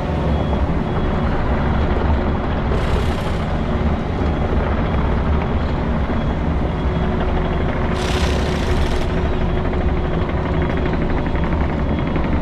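An engine running steadily with a low drone, with two short hisses about three seconds and eight seconds in.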